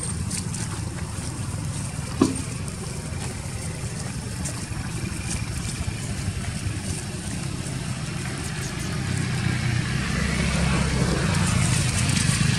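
A motor vehicle's engine running, getting louder toward the end, with a single sharp click about two seconds in.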